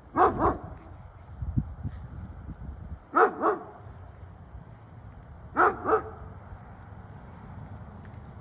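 A dog barking in pairs: three double barks, about two and a half seconds apart.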